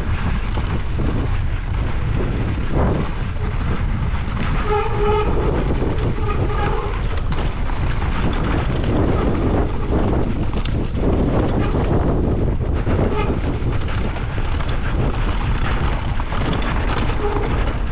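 Mountain bike rattling down a rough trail: tyres rumbling over dirt and rock, with the chain and frame clattering and wind buffeting the microphone. Two short tones sound near the middle.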